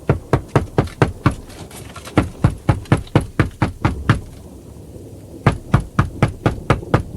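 Rapid, repeated knocking on a door, about four knocks a second. It stops for about a second and a half midway, then starts again.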